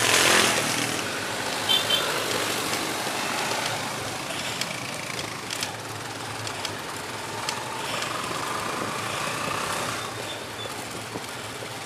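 Steady city road traffic heard from a moving bicycle, with car, motorcycle-tricycle and truck engines and tyre noise close by.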